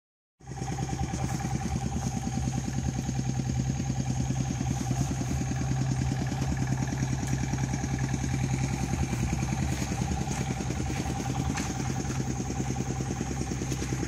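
Kubota L4708 tractor's diesel engine idling steadily, an even pulsing run with no revving, starting about half a second in.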